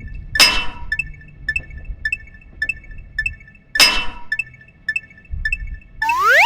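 Railroad crossing warning bell dinging steadily, about twice a second, in the Japanese 'kan kan' style. Two loud clinking, glass-like crashes about three and a half seconds apart cut across it, and a rising electronic whistle starts near the end over a low rumble.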